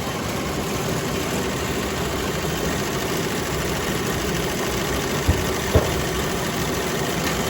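Steady hum of glove-factory machinery, with two short sharp knocks about five seconds in.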